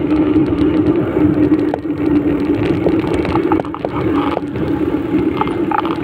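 Steady hum and road rumble of a vehicle riding along a street, with light rattles here and there.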